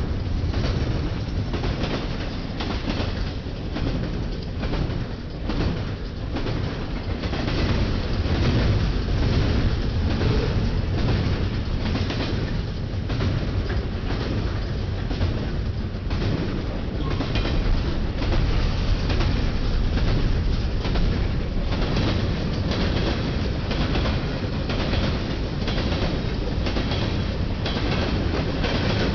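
Ferromex freight train rolling past, its wheels clacking rapidly and continuously over the rail joints under a steady rumble.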